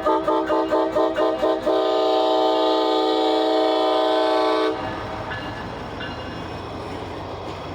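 CSX SD40-3 locomotive's air horn sounded as a horn show: a multi-note chord tapped in quick short toots, about four a second, then held in one long blast of about three seconds that cuts off suddenly. The train's rumble carries on after it.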